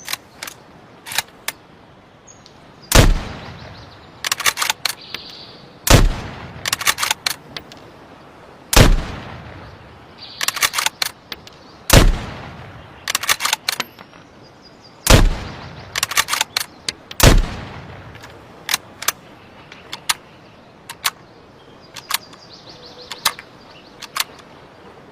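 Mosin-Nagant bolt-action rifle firing six shots about three seconds apart, each shot echoing and followed by a quick run of metallic clicks as the bolt is worked. After the last shot, only scattered clicks remain.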